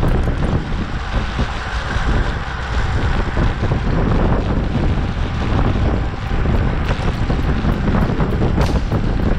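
Wind buffeting the microphone of a camera on a racing bicycle moving at speed, a steady low rumbling rush. In the second half there are faint, regular high ticks at about three a second.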